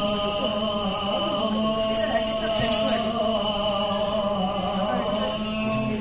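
Singing: a voice holding one long, steady chant-like note.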